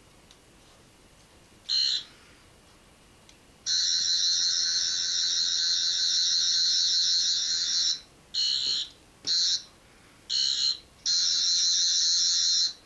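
Toy Doctor Who sonic screwdriver's electronic sound effect, a high buzz switched on and off: a short burst about two seconds in, a run of about four seconds, three short bursts, then a longer one near the end.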